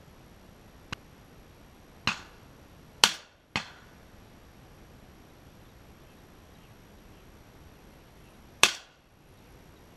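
Shotgun shots of different loudness. A faint crack comes about a second in. Three shots follow in quick succession between two and three and a half seconds in, the middle one loudest. A single loud shot comes near the end.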